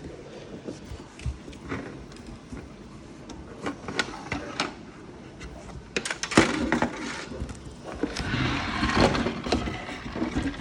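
Handling noise: scattered plastic clicks and knocks, with denser rustling and clattering stretches in the second half, as a toy RC car and its parts are moved about by hand.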